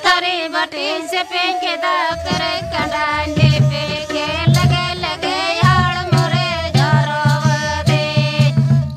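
Santali dong song: a folk melody sung over a steady hand-drum beat. The drum drops out for about the first two seconds, leaving the voice alone, then comes back in.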